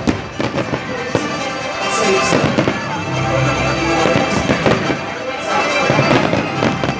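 Aerial fireworks bursting overhead in a rapid, irregular string of bangs and pops, over background music.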